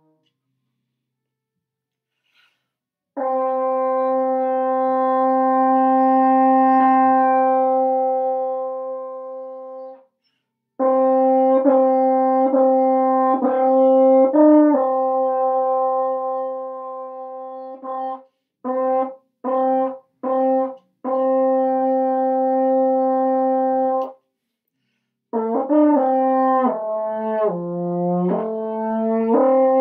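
Double French horn playing scale exercises solo. After about three seconds of silence comes a long held note that swells and fades, then a run of notes, four short detached notes and another held note; near the end a series of notes steps downward before leaping back up to a sustained note.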